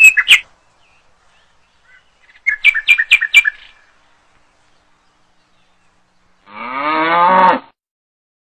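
Quick series of bird-like chirps, then near the end one long lowing call like a cow's moo, lasting about a second.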